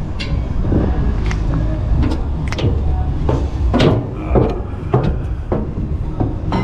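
Footsteps on metal diamond-plate steps and a steel ride platform: sharp knocks about twice a second over a steady low rumble.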